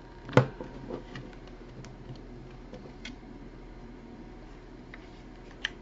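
A small plastic thermal printer being handled as fingers pry at the release tabs of its stuck lid: one sharp plastic knock about half a second in, then scattered light clicks and taps.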